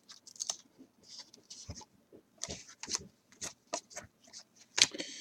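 Topps Chrome trading cards being slid off a stack and flipped one by one by hand: a string of soft clicks and brief brushing rustles.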